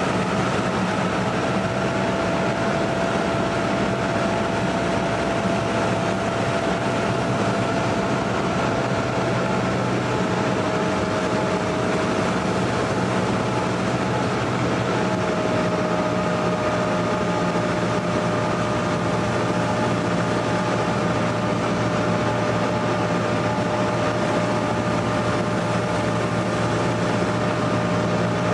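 Cessna 172N Skyhawk's four-cylinder Lycoming engine and propeller droning steadily in cruise, heard inside the cabin, with a thin steady whine that sinks slightly in pitch.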